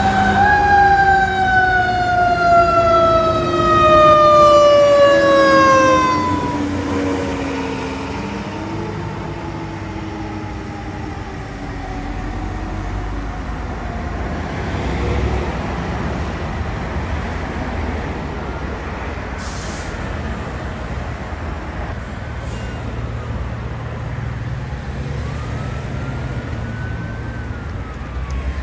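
A fire truck siren rising briefly, then winding down in one long falling wail over about six seconds as the apparatus arrives, over the steady rumble of truck engines. Another siren rises and falls faintly later on.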